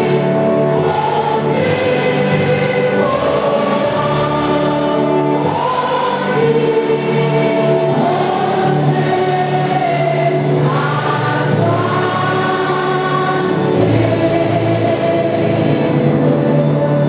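Church choir singing, in long held notes over a steady bass line.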